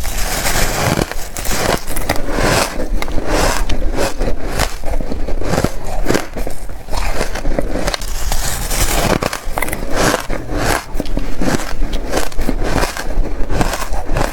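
Close-miked crunching of reshaped, powdery ice being bitten and chewed, a dense irregular run of crunches and crackles several times a second.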